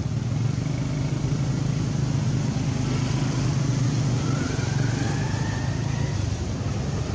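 Steady low hum of an engine running, with a faint rising whine from about four to six seconds in.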